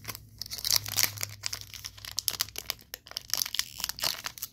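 A foil trading-card booster pack wrapper crinkling and crackling as it is torn open by hand, in quick irregular rustles.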